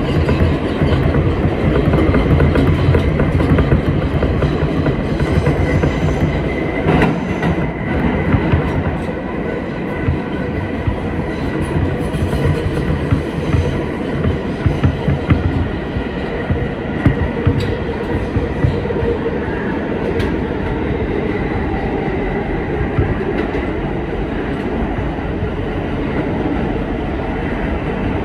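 A Kawasaki R160B subway car running at speed, heard from inside: continuous wheel and rail noise with clickety-clack over the rail joints and a faint steady high tone. It gets a little quieter about ten seconds in.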